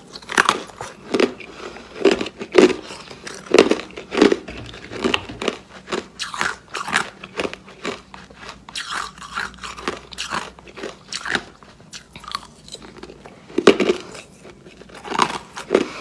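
Ice being bitten and chewed close to the microphone: a run of irregular crisp crunches, softer for a few seconds in the middle, with loud bites again near the end.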